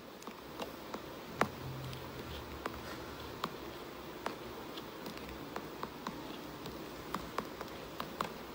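Faint steady room noise with scattered light clicks and ticks, the sharpest about a second and a half in.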